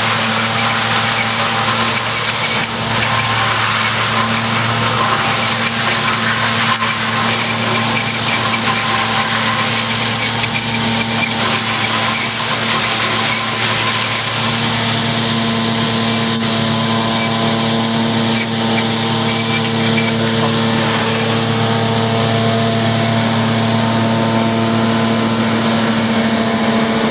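New Holland forage harvester cutting and chipping willow coppice: a steady engine drone under a broad rushing noise of the machine at work, with the engine note growing stronger about halfway through.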